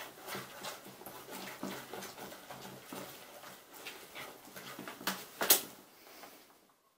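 Spoon stirring borax-activated glue slime in a glass bowl: a run of wet squelches and clicks, with two sharp, louder snaps about five seconds in. The sound cuts off suddenly just before the end.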